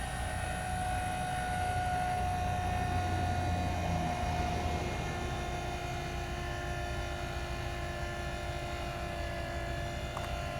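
Grey Wolf travel trailer's electric tongue jack running steadily, with a steady motor whine, as it raises the coupler up off the truck's ball hitch.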